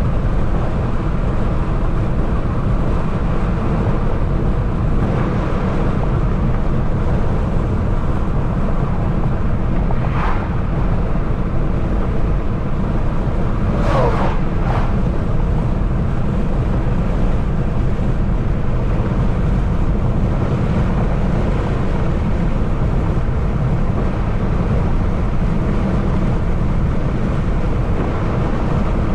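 A car's four-cylinder engine with stock exhaust cruising, heard from inside the car as a steady low drone mixed with road and wind noise. Two brief gliding squeaks cut through, about ten and fourteen seconds in.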